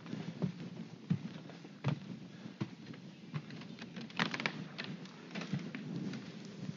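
Irregular light knocks, thumps and clicks from footsteps and handling noise as a person moves about in a small room, with a few sharper clicks scattered through.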